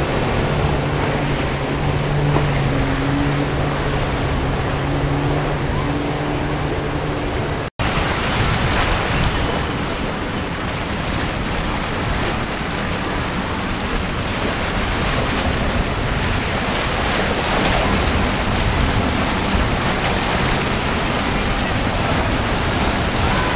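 Twin outboard motors humming steadily as a center-console boat runs past at speed, with hissing spray from the hull. After a sudden cut, a steady wash of wind on the microphone, breaking surf and hull spray with a low rumble, as a sportfishing boat pushes through choppy inlet waves.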